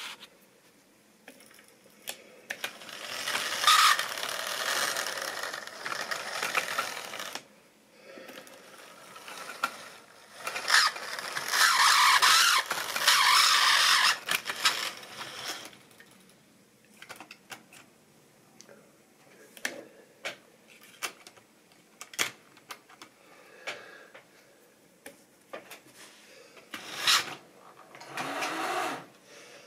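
OO-gauge model steam locomotive running along sectional model track: two stretches of rolling rattle a few seconds each, with scattered sharp clicks of wheels over rail joints and points in between, and a shorter rattle near the end.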